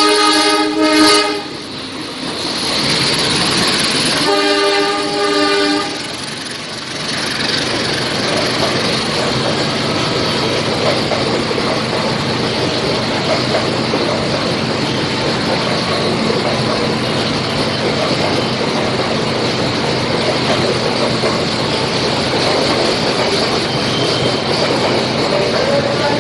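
Horn of a CC 203 diesel-electric locomotive arriving at a station, one blast at the start and a second about four seconds in. Then the passenger coaches roll steadily past the platform with a running rumble and wheel clatter.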